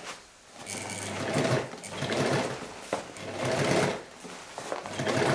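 Keller 51 sewing machine stitching a seam through slippery snow-tube fabric, running in several short bursts with brief stops in between.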